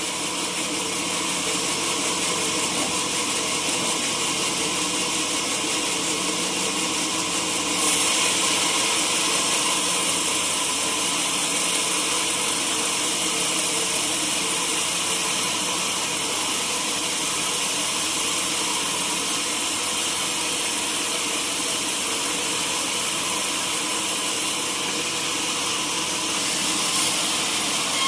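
Sawmill saw cutting a durian log: a steady machine hum under a hissing cut, which grows louder about eight seconds in.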